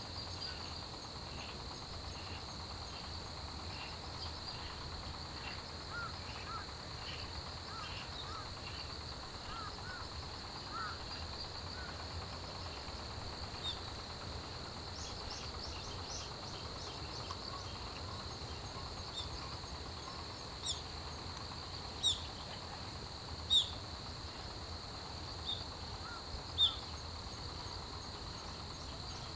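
Autumn grass insects and crickets trilling steadily in a high, continuous chorus. In the second half, a few short, sharp, falling chirps stand out above it.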